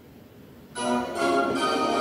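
Television playing a short musical jingle for a production-company logo, starting suddenly about three-quarters of a second in after a quiet moment.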